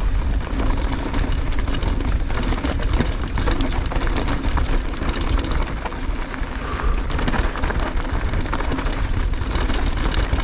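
Mountain bike ridden fast downhill over dirt and gravel: wind buffets the camera microphone in a constant low rumble, with the tyres on the loose surface and the bike rattling over bumps in many small clicks.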